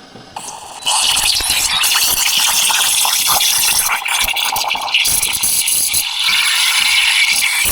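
Espresso-machine steam wand (Breville Barista Express) cutting in about a second in, then a loud, steady, crackling hiss as it steams and froths a jug of milk.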